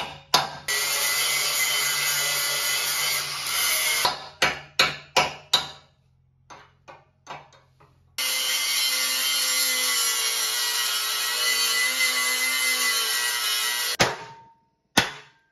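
Hammer driving a cold chisel against a riveted steel truck-frame crossmember to knock it loose: a quick run of about six metal strikes, with single blows at the start and near the end. Between them come two long stretches of steady power-tool noise, each starting and stopping abruptly.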